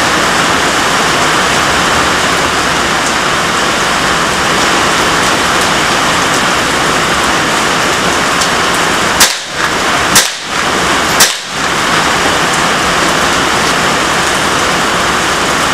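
Heavy rain hissing steadily, broken about nine seconds in by three sharp shots about a second apart from a Marlin Model 60 .22 LR semi-automatic rifle; the shots are the loudest sounds.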